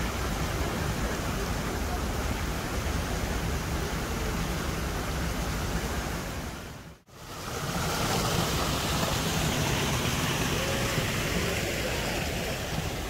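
Steady rush of water from a garden waterfall and stream. About halfway through it fades out to near silence and then fades back in.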